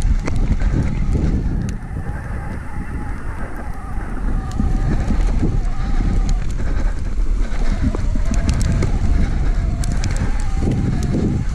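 Shimano Steps E8000 e-bike drive unit whining under pedalling, its pitch wavering with cadence. It fades briefly about two seconds in and then returns, over wind buffeting the microphone and the rumble and rattle of the fat tyres over snowy ground.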